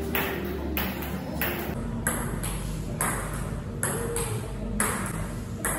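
Table tennis rally: the celluloid-type ball clicking off the bats and the DONIC Waldner table in a steady back-and-forth, about two hits a second.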